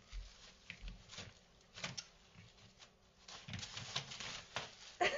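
A dog moving about on a floor: scattered scuffles and light knocks from its paws and body, with a louder scrape about five seconds in.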